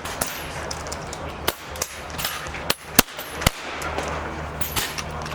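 PCP air rifles firing along a benchrest firing line: sharp cracks at irregular intervals from several rifles, the loudest three coming close together about three seconds in.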